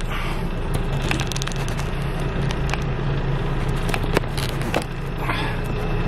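Handling noise from a camera mount being adjusted and tightened: scattered clicks and rubbing, over a steady low motor hum.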